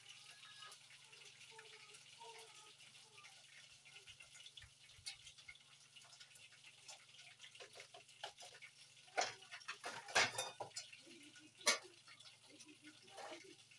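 Cooking spoon stirring parboiling rice in an aluminium pot on a gas stove, with small scrapes and clicks, then a few sharp knocks of utensil on pot about nine to twelve seconds in.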